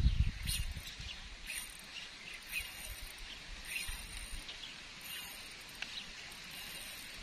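Faint outdoor ambience with short high-pitched calls from birds or insects, recurring about once a second. A low rumble fades out during the first second.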